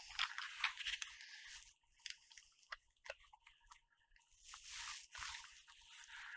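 Faint handling noise of a camera shoulder rig's metal and plastic parts being picked up and fitted together by hand: scattered light clicks and knocks, with soft scraping or rustling about two-thirds of the way through and again near the end.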